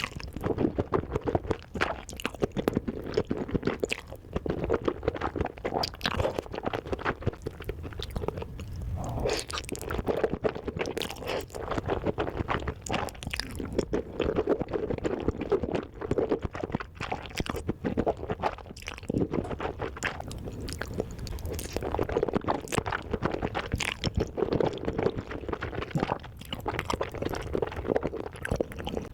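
Close-miked mukbang eating: a person chewing and crunching food with mouth open, giving a dense, irregular run of wet clicks and smacks.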